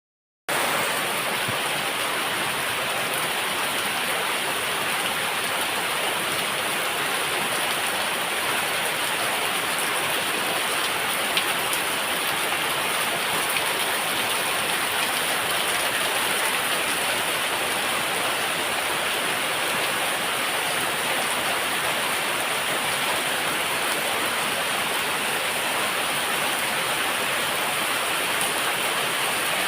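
Heavy rain pouring down in a steady, unbroken downpour, a dense even hiss of falling water.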